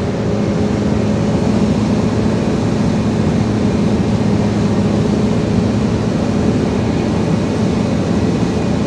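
Mercedes-Benz Actros 1844's V6 diesel engine running steadily under way, a steady low drone heard through the open cab window.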